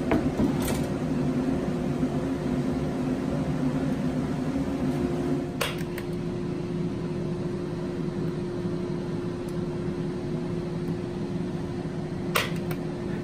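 Steady hum of an electric shop machine running, with a few light clicks.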